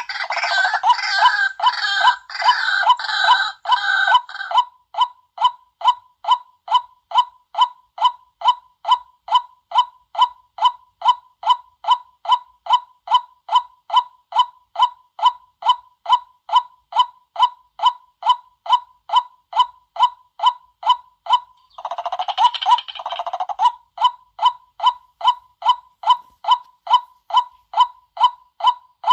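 White-breasted waterhen calling: a long, even series of short 'kwak' notes, about two to three a second, broken by two bursts of rough chattering croaks, one at the start and one about 22 seconds in. This is a lure call used to draw waterhens in.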